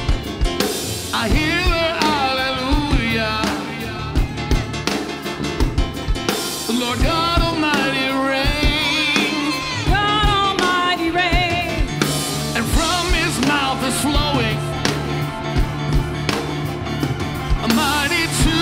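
Live worship band music: drum kit hits at a steady pulse over sustained bass and keys, with a wordless melodic line wavering with vibrato above.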